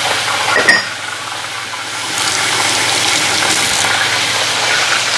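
Chicken pieces sizzling as they fry in a pan. There is a single sharp knock, as of a utensil against the pan, a little under a second in. The sizzle is softer for about a second after that, then comes back up.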